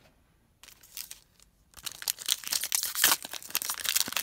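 A Panini Prizm baseball card pack's foil wrapper being torn open by hand. Faint crinkling at first, then loud, dense crinkling and tearing from about two seconds in.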